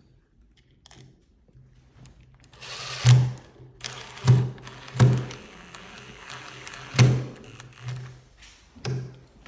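Door hardware being handled and fitted: a series of sharp clicks and knocks, about six, over a rustling, as a thumb turn privacy escutcheon is worked into place on the door.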